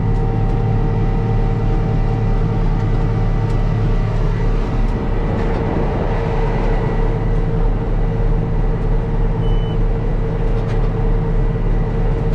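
Case IH 7120 tractor's six-cylinder diesel engine running steadily as it pulls a corn planter, with a short high beep about nine seconds in.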